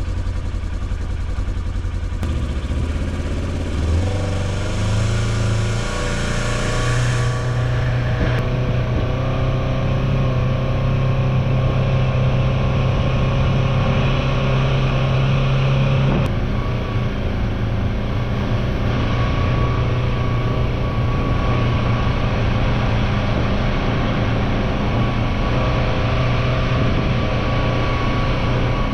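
Engine of a Ranger utility vehicle running as it drives. The revs rise about four to six seconds in, hold steady, then ease slightly around sixteen seconds.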